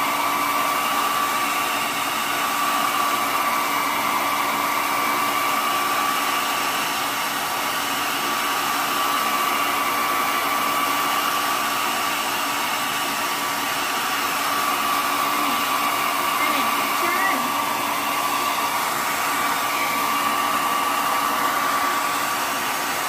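Hand-held hair dryer running steadily, a continuous rush of blown air with a steady whine over it.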